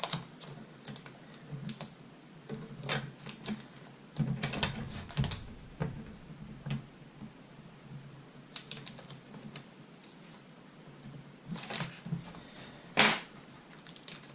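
Light irregular clicks and taps of hands working at a laptop's LCD panel while unplugging the display cable from the back of the screen, with a few louder knocks, the loudest about 13 seconds in.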